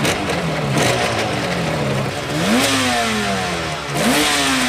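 Motorcycle engine being revved in throttle blips: the revs jump up sharply and sink back slowly, the two biggest blips about two and a half and four seconds in.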